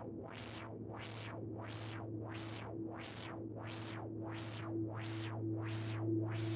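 Synthesizer background music: a steady low drone and a held tone under repeating swooshes of noise, about two a second, growing a little louder near the end.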